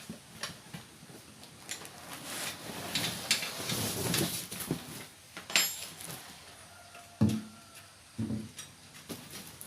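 Handling of a hard-shell motorcycle pannier case being unpacked: rustling of its packing and padding in the middle, then several sharp knocks and clacks of the case and its lid, the loudest about two-thirds of the way in.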